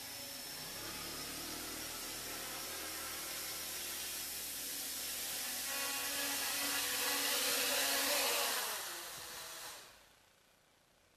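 Quadcopter's four electric motors and propellers buzzing in flight, growing louder as it comes down close over the paving, then winding down in pitch and stopping near the end as it lands.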